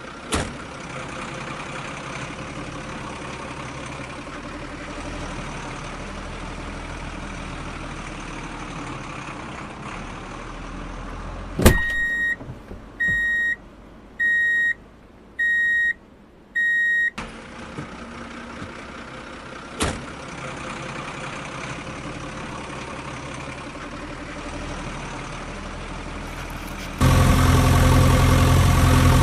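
Truck sounds: a steady engine-like noise, then a sharp click and five evenly spaced reversing beeps, each about half a second long. A second click follows, and near the end a much louder heavy engine comes in, idling steadily.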